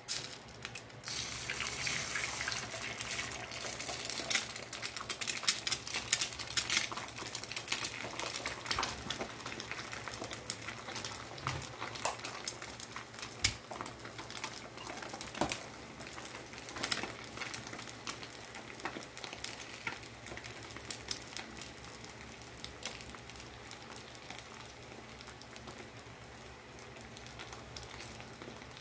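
Egg sizzling and crackling on the hot metal soleplate of an upturned clothes iron. It starts suddenly as the egg goes onto the plate, is loudest and most crackly for the first several seconds, then slowly settles to a quieter sizzle as the egg sets.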